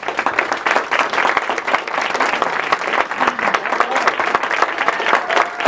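Audience applauding, a dense steady clapping that stays loud throughout.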